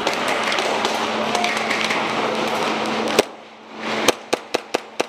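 A dense clatter of many small clicks and hits, then a sudden drop and a rapid string of about six sharp shots from an airsoft pistol, roughly five a second.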